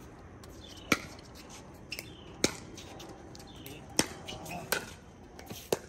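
Pickleball rally: sharp pops of paddles striking the hard plastic ball, about six hits at irregular intervals roughly a second apart.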